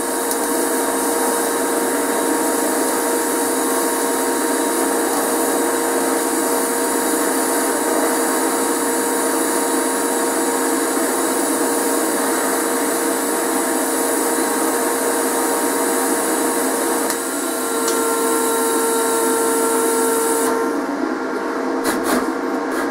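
TIG welding arc on steel, hissing steadily with a constant electrical hum as filler rod is fed in to plug-weld a damaged bolt hole shut. Its tone shifts slightly a few seconds before the arc cuts off, about two seconds before the end.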